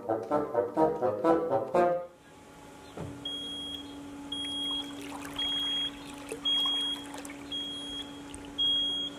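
Two bassoons playing until about two seconds in, then a canal lock gate at work: a steady motor hum with a short high warning beep about once a second, six beeps in all, over faint stirring water.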